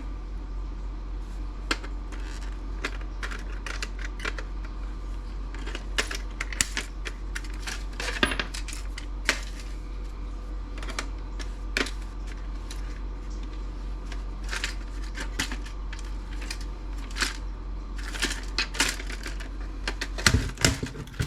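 Irregular sharp clicks and clinks of small metal and plastic parts being handled and pried apart while a laptop docking station is dismantled, over a steady low hum.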